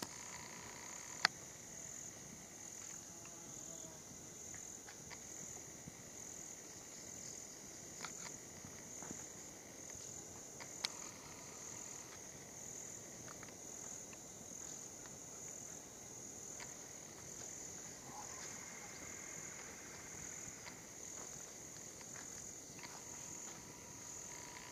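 Faint, steady insect chorus, high-pitched and evenly pulsing, with two sharp clicks, about a second in and about eleven seconds in.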